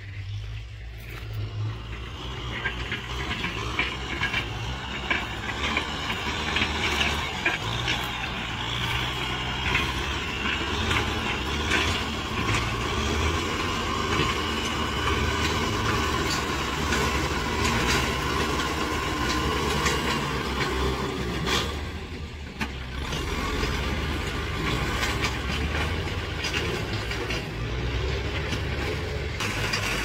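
Kubota M6040 tractor's diesel engine running steadily under load as its front blade pushes soil, easing briefly about three-quarters of the way through.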